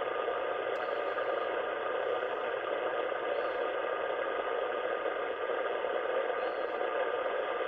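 Steady static hiss from an HF ham radio receiver tuned to the 80-metre band, with a few faint steady tones in it. This is band noise with no signal.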